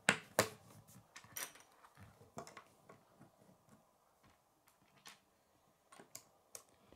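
Plastic K'nex rods and connectors clicking as they are handled and snapped together: a scattering of sharp clicks, most of them in the first few seconds and a couple more near the end.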